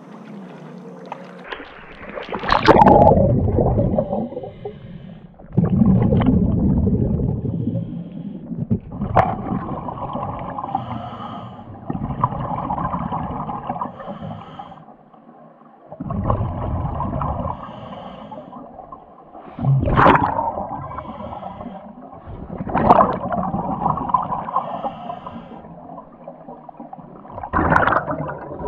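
A scuba diver breathing through a regulator underwater: the exhaled air bubbles out in gurgling bursts, one breath cycle every three to four seconds.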